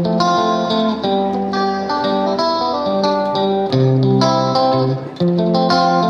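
Instrumental background music led by plucked guitar, a run of bright notes over a recurring bass note.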